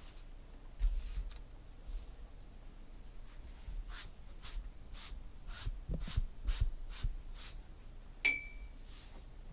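Off-camera handling noise: a run of soft swishes at about two a second, a few low thumps, and one sharp tap with a short ringing tone near the end.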